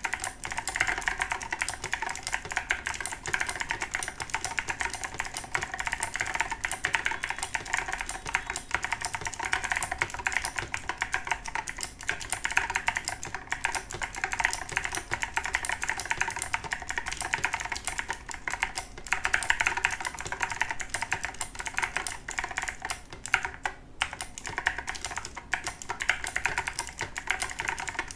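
Continuous fast typing on a Razer BlackWidow Tournament Edition X Chroma mechanical keyboard with clicky Razer Green switches and SA-profile keycaps: a dense stream of sharp key clicks, with two brief pauses.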